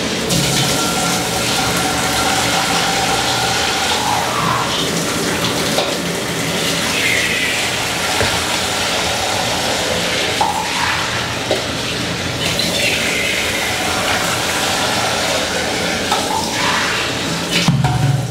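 Water being poured steadily into a metal pot of rice and vegetables, splashing as it fills.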